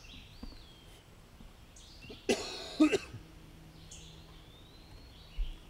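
A man coughs, a short double cough about two seconds in. Faint bird calls with thin gliding whistles can be heard before and after it.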